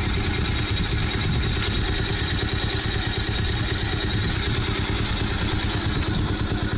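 Bajaj Pulsar 150's single-cylinder four-stroke engine idling steadily, hot after a high-speed run.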